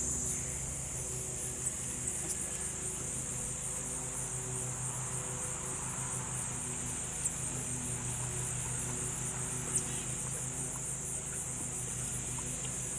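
Steady high-pitched chorus of insects, likely crickets, with a low steady hum beneath it and a few faint clicks.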